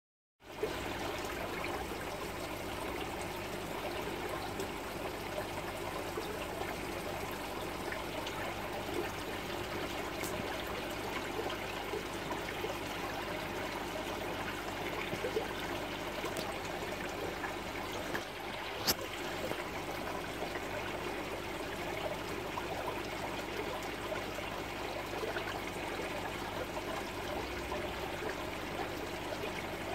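Aquarium water trickling steadily, the running sound of the tank's water circulation. A few faint clicks sound over it, one sharper click about two-thirds of the way through.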